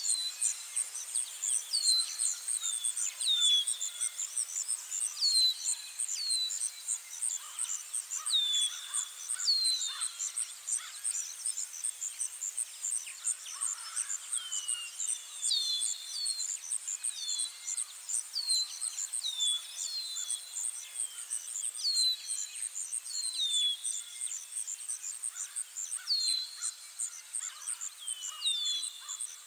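Outdoor nature ambience: insects trilling steadily in a rapid, even pulse, with short falling bird chirps, often in pairs, recurring every second or two.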